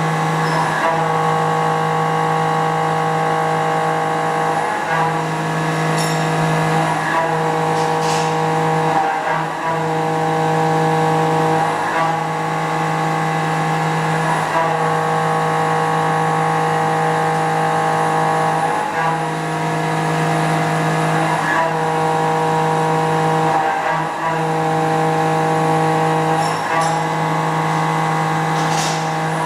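Quaser MV 184 machining center high-speed milling a mold plate: a steady cutting tone with many overtones from the spinning cutter, dipping briefly every two to three seconds.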